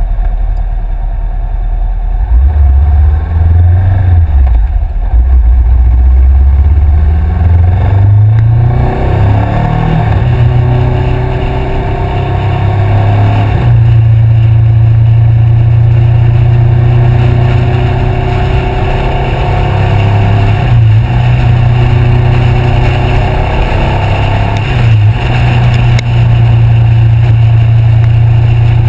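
2013 Honda CBR500R's parallel-twin engine through a Two Brothers aftermarket exhaust, under way on the road. The revs climb, drop once about four seconds in and climb again, then hold steady at cruising speed with three brief dips in pitch.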